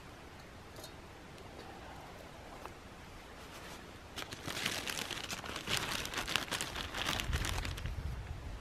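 Clear plastic bag crinkling and rustling as it is handled, starting about four seconds in after a quiet stretch with a few faint clicks.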